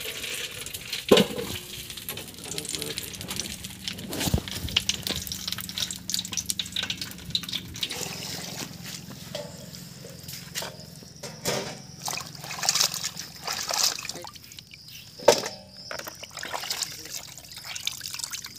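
Water splashing and trickling as raw chicken pieces are swirled by hand in a plastic bucket of water and lifted out dripping, with scattered clicks and a few sharper knocks.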